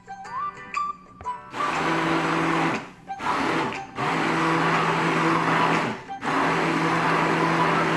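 Hand-held immersion blender running in a pot of thick liquid. It starts about a second and a half in and runs as a steady whirring hum, cutting out briefly about three times before starting again. Background music with plucked notes is heard before the blender starts.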